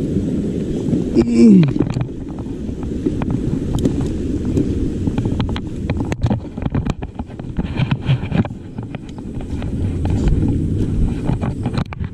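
Wind buffeting the microphone as a mountain bike rides over rough trail, a steady low rumble with scattered clicks and rattles. A brief falling tone about a second and a half in.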